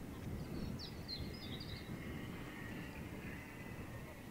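Open-air field sound over a low wind rumble on the microphone, with a small bird chirping several times in the first two seconds. From about halfway there is a faint, steady high whine that drifts slightly in pitch: the FPV plane's electric motor and propeller flying at a distance.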